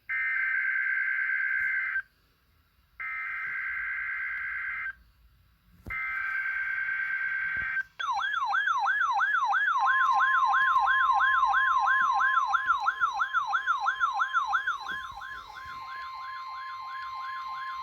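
NOAA Weather Radio required weekly test: three bursts of SAME digital header data, a buzzy two-tone warble, with short gaps between them. Then a fast warbling alarm siren, about three warbles a second. About two seconds later the steady warning alarm tone joins it. The alarm fades near the end.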